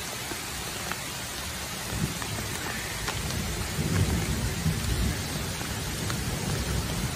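Steady rain falling in a thunderstorm, with scattered drop ticks. A low rumble of thunder builds about two seconds in and is strongest around four seconds.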